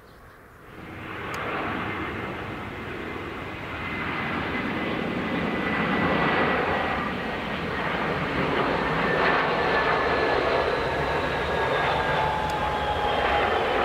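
Airbus A320-family airliner's twin jet engines on approach and landing, a loud steady rush that comes in suddenly about a second in. Thin whines in the rush slowly fall in pitch as the plane passes, and it touches down near the end.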